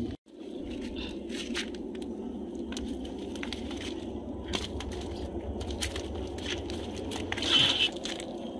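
Hands working fish free of a nylon cast net: scattered crackling and rustling of the mesh with wet squishing of the fish, over a steady low hum. A louder burst of handling noise comes about seven and a half seconds in.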